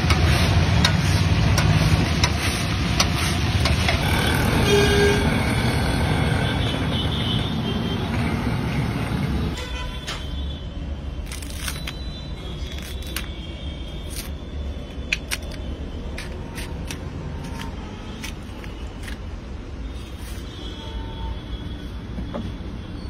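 Raw banana slices sizzling in a large kadai of hot oil, with a vehicle horn tooting from the street. About ten seconds in, this cuts to a much quieter stretch of scattered clicks and snaps as green plantains are peeled by hand.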